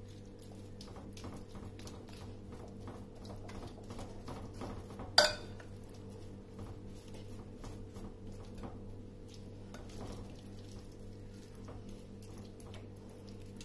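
A metal spoon scraping and tapping softly on a glass bowl as it spreads wet masala over marinated fish pieces, with one sharp clink about five seconds in. A low steady hum runs underneath.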